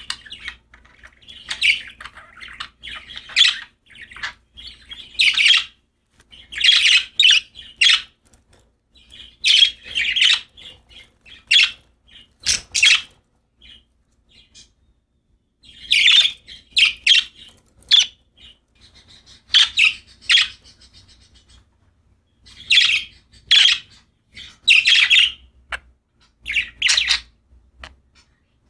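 Pet budgerigars chirping and chattering in short bursts of high, scratchy calls with brief pauses, including a quieter stretch about halfway through.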